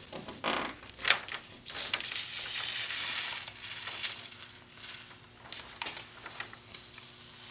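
Blue painter's tape being peeled off a freshly painted wall, a ripping, crinkling noise: a few short rips in the first two seconds, a longer, louder pull about two to three seconds in, then quieter crinkling.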